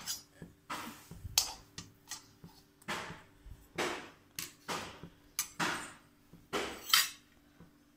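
Steel kitchen utensils being handled: a run of short clinks, knocks and scrapes of a spoon, plate and pan, about one a second, over a faint low steady hum.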